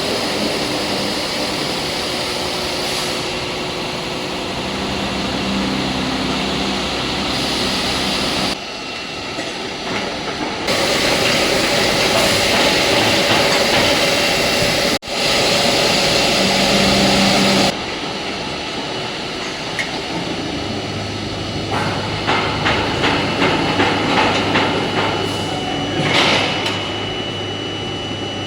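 Hydraulic press machinery running: a steady motor and pump noise that shifts abruptly in level and character several times. In the last few seconds a low hum carries a quick run of metallic knocks, a few per second.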